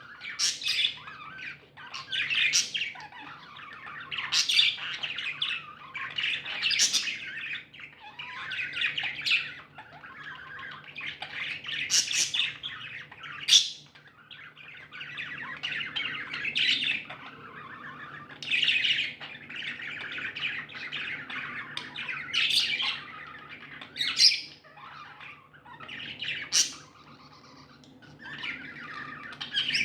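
A group of pet budgerigars chattering and warbling without pause, with loud, short, sharp calls breaking through every second or two, over a faint steady hum.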